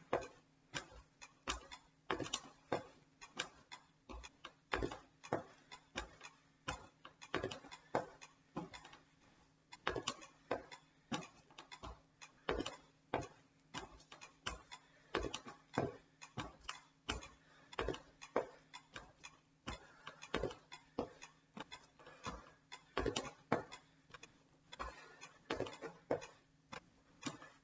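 A metronome ticking steadily to set the stepping pace, mixed with sneaker footfalls stepping up onto and down off a wooden bench.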